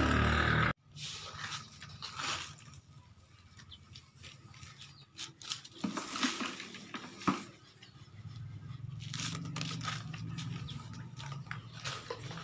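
Hand and cloth rubbing over freshly sanded body filler on a car door: soft, scattered scraping and wiping strokes. A louder sound cuts off abruptly just under a second in.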